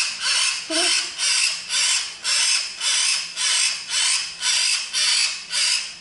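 Young hill myna giving harsh, rasping begging calls over and over, a little more than two a second, as it is fed banana.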